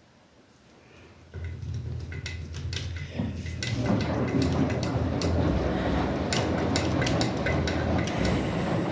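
Washing machine starting up: a low motor hum comes in suddenly about a second and a half in, then the drum turns with a louder rumble from about three and a half seconds, with scattered sharp clicks and knocks over it.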